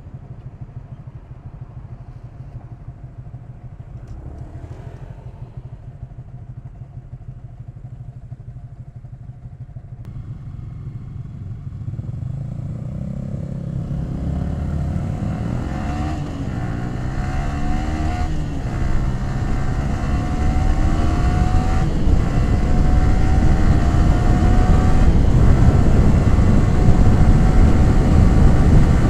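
Yamaha R15 V3's 155 cc single-cylinder engine and exhaust running at low revs, then accelerating hard for the second half, its pitch climbing through the gears and growing steadily louder.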